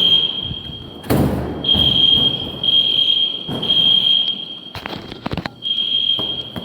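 School fire alarm sounding a high, steady tone in repeated stretches of about a second with short breaks. Loud thumps and rattles come about a second in and again around five seconds in.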